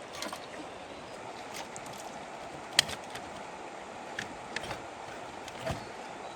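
Steady rush of water with scattered small knocks and splashes, one sharp knock about three seconds in.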